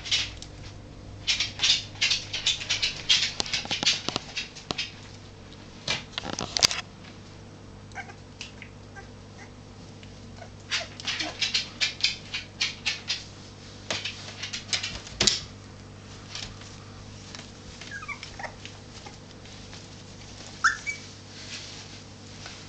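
Two-and-a-half-week-old whippet puppies squeaking and whimpering as they wrestle, in short bursts of quick high squeaks, with a few longer thin whines in the second half.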